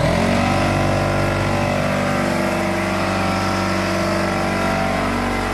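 Air compressor motor running loud and steady, refilling its tank because the pressure, about 50 psi, was too low for the 18-gauge nail gun to drive a nail.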